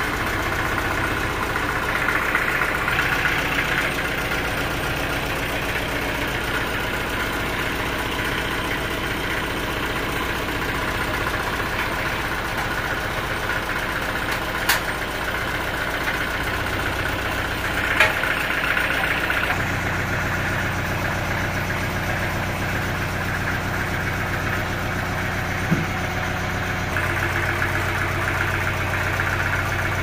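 Stationary engine driving a band sawmill, idling steadily with the blade not cutting; its low hum grows fuller about two-thirds of the way through. Three short metallic clicks or clanks stand out against it.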